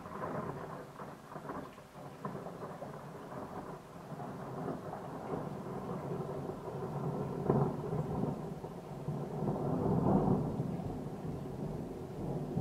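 A long roll of thunder that starts suddenly, rumbles and crackles on for over ten seconds and swells to its loudest about ten seconds in, over steady rain.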